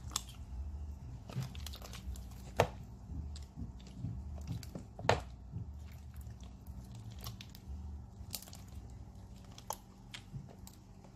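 Hands kneading and stretching a mass of sticky neon-green slime: squishing and crackling, with scattered sharp pops, the loudest about two and a half and five seconds in.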